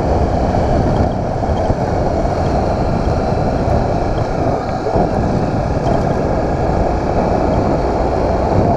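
Small motorcycle being ridden, its engine running steadily under a dense rush of wind noise.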